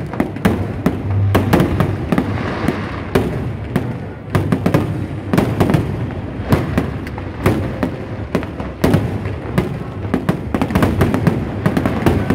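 Fireworks display going off in quick succession: sharp bangs and booms, about three or four a second, overlapping with no pause.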